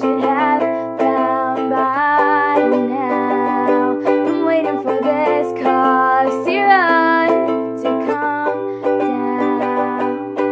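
Ukulele strummed steadily, with a voice carrying a wordless sung melody over it that glides up and down in places.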